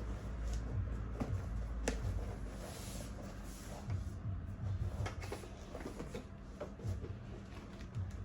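Irregular knocks and clicks of high chair parts being handled and fitted together during assembly, over a low steady hum.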